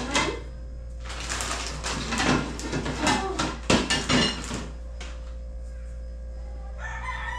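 Plates, containers and serving utensils clattering and clinking as food is dished out. A sharp clack comes at the start, then a few seconds of busy clatter, which dies down about halfway through.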